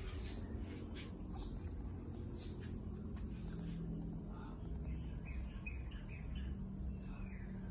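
Ambient insect chorus: a steady high-pitched drone, with a few short chirps scattered through it and a low steady hum underneath.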